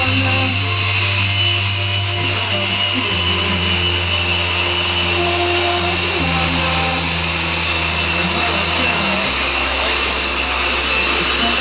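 The twin Williams FJ44 turbofan engines of a Cessna Citation CJ2 running at taxi power: a steady, loud rushing whine with high whistling tones as the jet taxis past and turns away.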